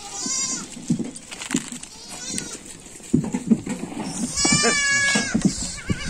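Goats bleating: a short quavering bleat at the start, then a long, loud, high quavering bleat about four and a half seconds in.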